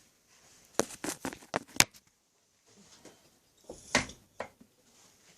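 Sharp metallic clicks and knocks from the headstock of a 1923 South Bend lathe as its back gears are worked out of mesh by hand. A quick cluster of about six knocks comes about a second in, and a few more follow near four seconds.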